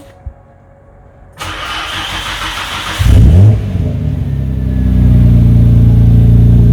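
Nissan Skyline R33 GT-R's RB26DETT twin-turbo straight-six being started. The starter cranks for about a second and a half, then the engine catches with a short rev and settles into a steady idle.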